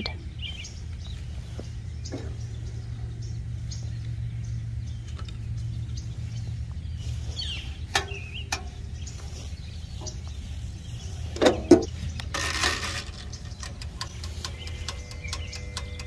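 Small countertop toaster oven being loaded: a few light clicks, then a loud metal-and-glass clatter of the rack and door about 11 to 12 seconds in. Near the end the oven's mechanical timer dial starts ticking rapidly and evenly over a faint hum. A steady low rumble sits underneath throughout.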